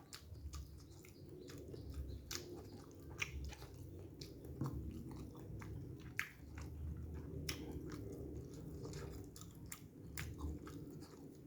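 Close-miked chewing of a meal of free-range chicken and noodles: irregular wet smacks and clicks from the mouth, with soft squishy chewing underneath.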